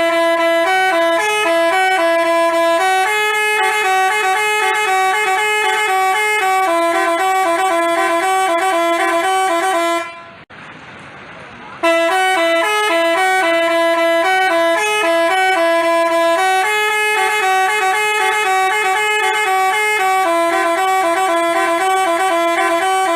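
Telolet basuri bus horn playing a multi-note tune. It stops for a moment about ten seconds in, then plays the same tune again.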